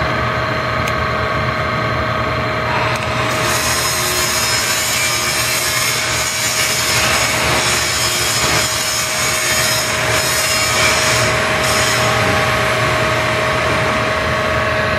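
Radial arm drill running with a steady hum. From about three seconds in, a large twist drill bores into a block of wood with a rough, scraping cutting noise, which thins out about twelve seconds in.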